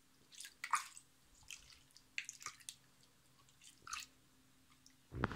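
Hand stirring soapy water in a bathtub: small scattered splashes and drips, then a much louder rush of sloshing water just before the end.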